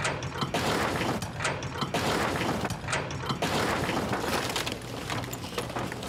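A caravan-like shed dropped onto a Toyota Hilux pickup and smashing apart: a long run of crashing, splintering and breaking impacts.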